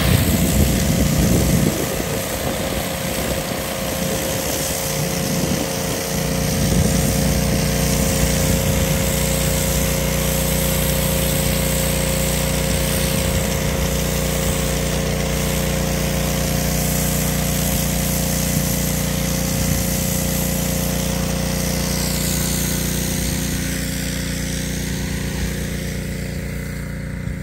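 Gas pressure washer running steadily, its small engine heard under the hiss of the high-pressure spray blasting flaking paint off a cinder-block wall. The spray's hiss fades near the end while the engine keeps running.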